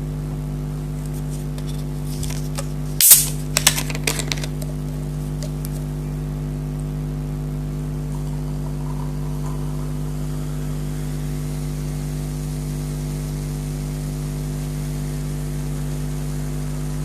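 Steady low electrical-sounding hum made of several held tones, with a brief cluster of sharp clicks and rustles about three to four seconds in.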